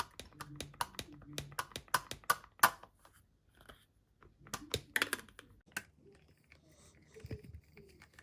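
Plastic breast pump parts being handled and fitted together: a quick run of sharp clicks and taps, a short pause, then a second cluster of clicks, then quieter handling.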